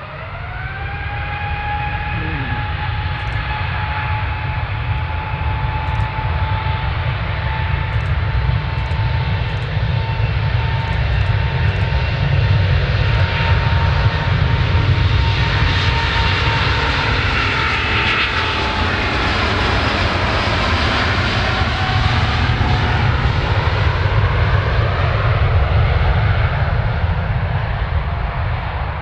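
Jet airliner's engines passing close by: a steady turbine whine that rises in pitch in the first second, grows to its loudest through the middle, then falls in pitch as the aircraft goes past, over a deep rumble. A few faint clicks sound in the first third.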